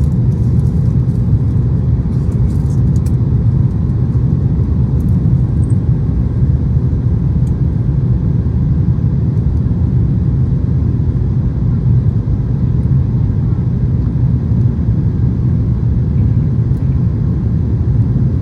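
Steady low rumble of an airplane landing, with a few faint clicks in the first few seconds; it cuts off suddenly at the end.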